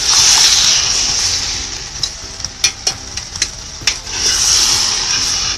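Native chicken pieces sizzling in hot oil with ginger, garlic and onion as they are stirred in the pot. The sizzle is loudest at the start, eases off in the middle and swells again near the end, with a few sharp clicks of the stirring utensil against the pot in between.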